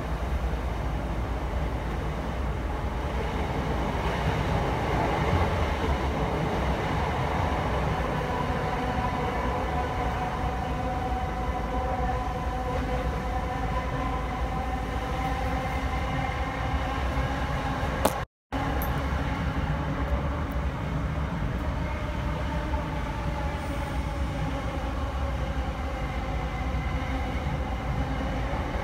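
Southeastern Class 465 electric multiple unit running, heard from inside the carriage: a steady rumble of the train on the track with a whine that slowly shifts in pitch. The sound cuts out for a split second about 18 seconds in.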